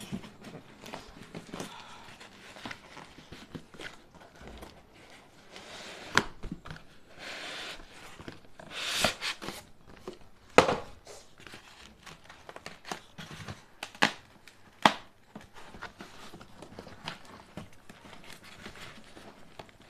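Cardboard box and polystyrene foam packing being handled as a TV is worked out of its carton: scraping and rubbing noise, broken by a few sharp knocks, the loudest about ten seconds in.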